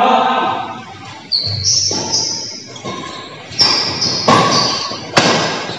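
Badminton rally in an echoing hall: four sharp racket strikes on the shuttlecock, with short high squeaks of shoes on the court floor between them.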